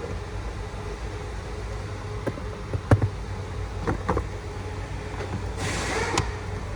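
A few sharp clicks and knocks, the loudest about three seconds in, over a steady low hum, with a short hissy rustle near the end.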